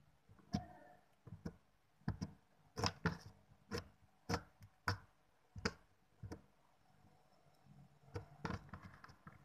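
Slime being pressed and worked by hand, giving a string of sharp clicking pops about two a second, a short pause, then a quick burst of clicks near the end.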